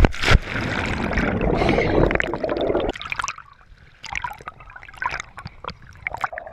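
A scuba diver entering the sea from a boat: a sharp splash at the start, then about three seconds of loud churning water and bubbles. After that it is quieter, with water sloshing and bubbles popping and crackling as the action camera dips under the surface.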